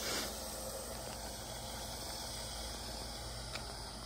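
Steady, even background hiss of outdoor ambience, with one faint click about three and a half seconds in.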